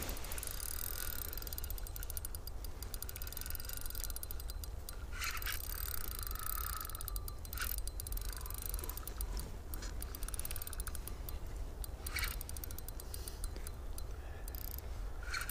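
Spinning reel clicking and whirring, its gears and drag working steadily while a large lake trout is played on the line, with a few louder bursts along the way and a steady low rumble underneath.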